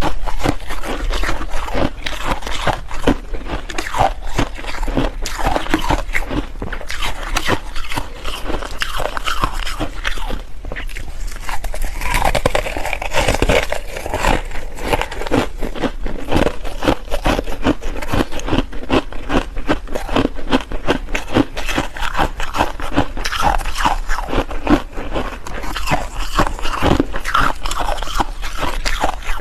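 Ice being bitten and chewed, a continuous run of rapid crunching and crackling.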